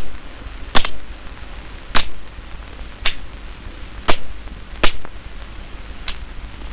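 Sharp single clicks, about one a second at uneven gaps, over the steady low hum and hiss of an old film soundtrack.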